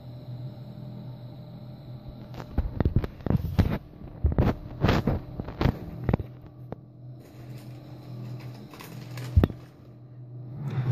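Handling noise from a handheld phone: a run of clicks, knocks and rubs about two to six seconds in and one more knock near the end, over a steady low hum.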